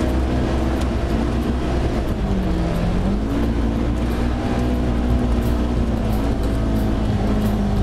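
Side-by-side UTV engine running at a steady cruising pace on a dirt trail. Its pitch dips briefly about two and a half seconds in, then climbs back, over a low rumble of tyres and wind.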